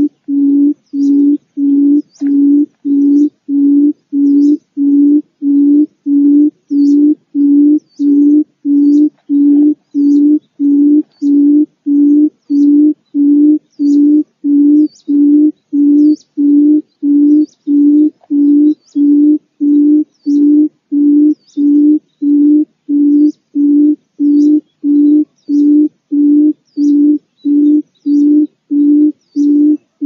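Barred buttonquail calling: a low hooting note repeated in a steady, even series, about one and a half hoots a second.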